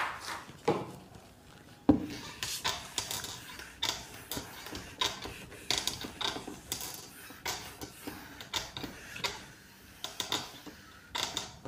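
Whiteboard eraser wiping across a whiteboard in many quick, repeated rubbing strokes, with a single sharp knock about two seconds in.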